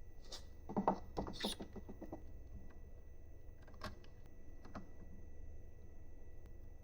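A quick flurry of small clicks and rattles, then two single clicks a second apart: small metal hardware and tools being handled while assembling a 3D printer.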